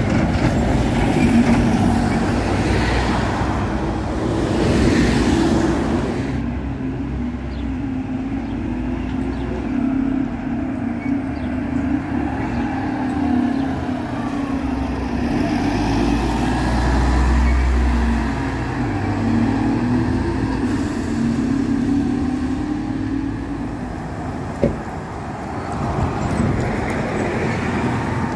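Diesel engines of old Volvo B7R city buses running as the buses move along the street and pass close by, mixed with traffic noise. A single sharp knock is heard late on.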